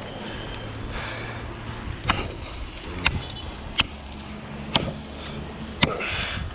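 Sharp chopping strikes into a coconut palm trunk, about one a second, as the back cut is made, over a faint steady low hum.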